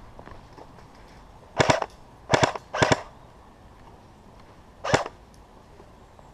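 Airsoft gun firing short bursts of shots: three quick bursts between about one and a half and three seconds in, then one more about five seconds in.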